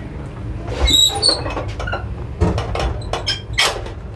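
A train washroom door being opened: a brief squeal about a second in, then several clicks and knocks of the door and its latch, over the steady low rumble of the moving coach.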